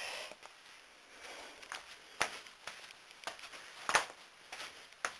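Handling noise from a paper shadow puppet on its rod: a brief rustle, then a few sharp clicks and knocks, the loudest about four seconds in.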